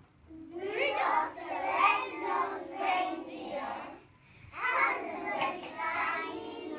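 A class of young children singing together in unison, in two phrases with a short break about four seconds in.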